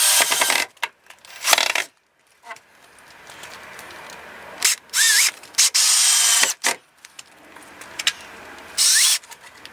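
Cordless drill-driver driving a screw into a timber gate stop, stopping about half a second in. It is followed by a series of short bursts and clicks, two of them with a brief rising whine, as the driver is triggered briefly and fresh screws are fitted to the bit.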